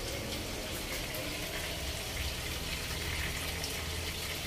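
Marinated chicken pieces frying in hot oil in a pan, a steady sizzle and crackle over a low hum.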